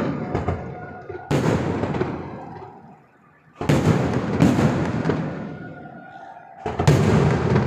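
Fireworks exploding: four or five loud bangs, each trailing off in a long rumbling decay.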